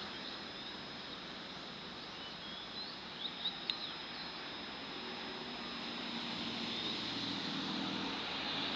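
Diesel railcar train's engines running and growing louder from about halfway through as it pulls away from the platform, over a steady outdoor background with a thin high insect-like tone. A few short bird chirps a little past three seconds in.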